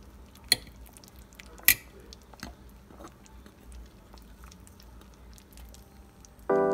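A metal fork prodding saucy pork ribs in a slow cooker's crock, clinking sharply against the pot twice in the first two seconds, with a few softer wet taps after. Piano music comes in near the end.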